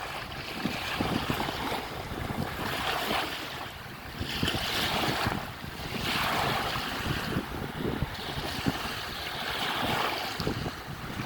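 Waves breaking and washing in, in surges every second or two, with wind buffeting the microphone.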